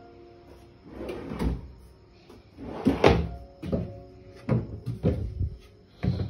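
Laminate cabinet doors and drawers being opened by hand, giving a series of wooden knocks and clicks. The loudest comes about three seconds in, followed by several quicker knocks.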